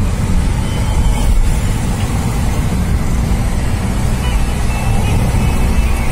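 Steady low rumble of a car in motion: road and engine noise.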